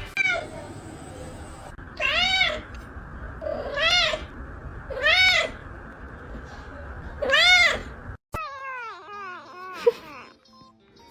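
A cat meowing: four loud, drawn-out meows that each rise and fall in pitch, over a steady hiss. After a sudden break near eight seconds comes a run of shorter meows that fall in pitch.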